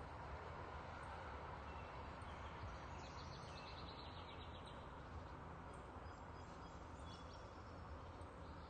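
Faint steady outdoor background noise with distant small birds chirping, including a rapid high trill about three seconds in that lasts a little over a second.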